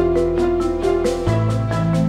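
Background music: a keyboard melody of quick, evenly spaced notes, about four a second, over a held bass note that shifts to a new note just past a second in.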